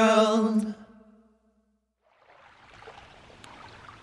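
The last held chord of a song fading out within the first second, then a short silence. Faint ripples lapping at a shallow gravel lake shore come in after that.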